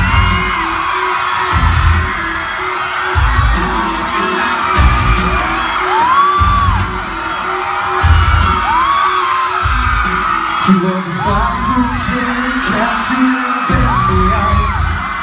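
Amplified live pop music from a concert sound system, recorded on a phone in the crowd: a heavy bass beat roughly every one and a half seconds, with short rising-and-falling whoops from the audience over it.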